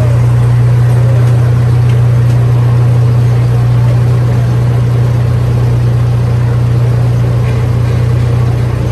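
Miniature amusement-park train's engine running with a steady low drone as the train rolls slowly.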